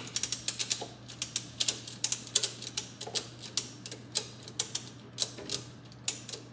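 A hand socket ratchet clicking in quick, sharp runs as it turns the threaded rod of a coil spring compressor.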